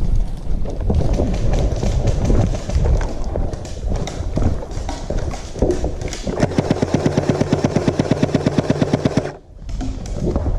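Airsoft electric gun firing one long full-auto burst of about three seconds, roughly a dozen shots a second over the hum of its motor and gearbox, starting about six seconds in and cutting off sharply. Before it comes irregular clatter and knocking.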